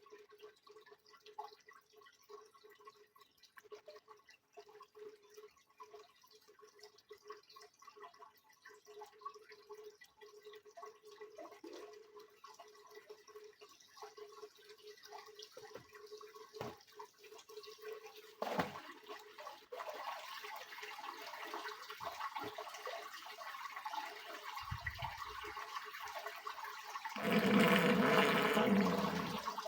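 Water dripping and trickling in a Soviet washing machine, turning into a steady flow about two-thirds of the way in, with a louder rush of water for a couple of seconds near the end.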